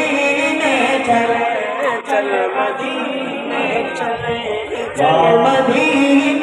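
A man's voice singing a naat, an Urdu devotional poem, unaccompanied through a microphone, in long, wavering, held notes. The singing drops softer about two seconds in and swells back up near the end, with a few faint clicks.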